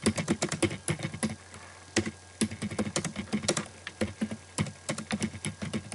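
Computer keyboard keys clicking in quick, irregular keystrokes as a short message is typed, with a brief pause about a second and a half in.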